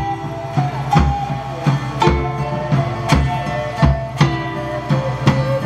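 A live medieval-style folk band playing: a drum beat with a low thump about once a second, and a melody of held notes over a steady low drone.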